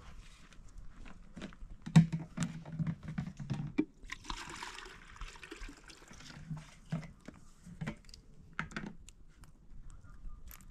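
Water pouring from a plastic jug for about a second and a half, about four seconds in, amid scattered knocks and clatter of things being handled.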